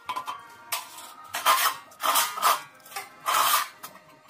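About five short rasping scrapes of sheet metal on a concrete floor, each lasting a quarter to half a second, made while a light-gauge steel channel is handled.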